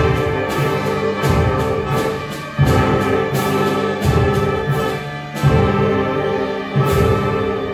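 School concert band playing, woodwinds and brass holding full chords with heavy accented beats about every second and a half.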